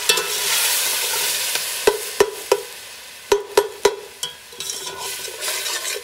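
Chopped tomatoes and ginger-garlic sizzling in hot oil in a stainless steel pot, loud at first and fading over the first three seconds, while a metal slotted spoon stirs and knocks against the pot about six times.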